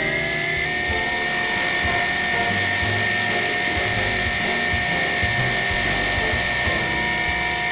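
Milling machine running with a steady high-pitched whine over a strong hiss, as the table carries the tailstock base under the spindle.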